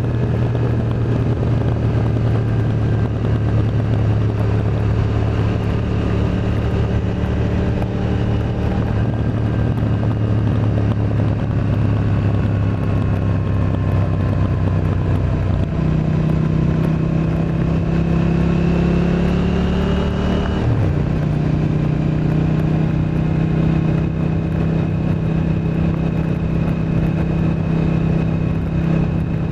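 KTM 890 Duke R parallel-twin engine running through an Akrapovic exhaust under steady throttle. Its note jumps up in pitch about halfway through and climbs slowly. There is a brief break a few seconds later, like a gear change, before it holds steady again.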